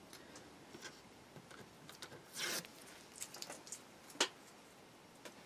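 Quiet handling noises of masking tape and a small plastic model part on a cutting mat: a brief rustling rub about halfway through, a sharp click about a second later, and a few small ticks.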